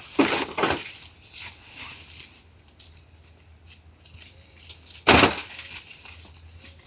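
Firewood being handled on a bonfire pile: a brief rustling knock at the start and a single sharp clack about five seconds in, with faint rustling between.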